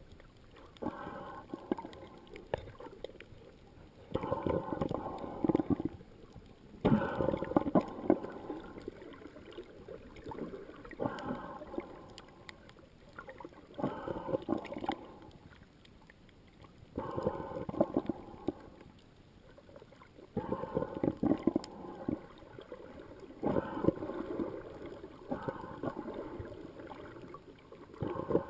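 Muffled sea water swishing and gurgling around an underwater camera in shallow water, in surges every two to three seconds.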